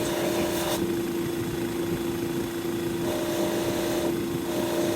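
Electric buffing wheel running with a steady hum while guitar finish is polished, the hiss above the hum rising and falling a few times as the work is pressed against and eased off the wheel.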